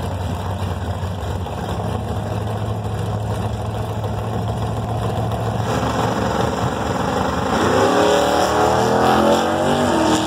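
Drag race cars idling with a steady low rumble at the starting line; about seven and a half seconds in, an engine launches hard and its note climbs steeply in pitch as it accelerates away.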